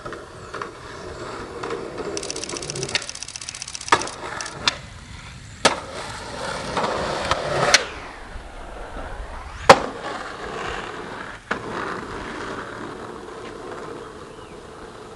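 Skateboard wheels rolling on concrete, with a fast rattle about two seconds in and several sharp board clacks. A crack comes a little before the middle, and the loudest hit, a hard board impact, comes about two thirds of the way through, as a skateboard lands an airwalk down a seventeen-stair set; the rolling carries on afterwards.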